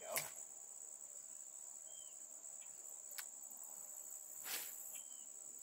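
Insects calling in a steady, high-pitched drone, with a few sharp clicks, the loudest near the start and another about four and a half seconds in.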